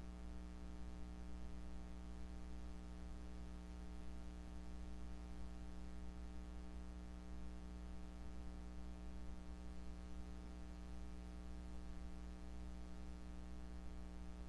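Steady low electrical hum with several higher overtones, over a faint hiss; no growls or other sounds stand out.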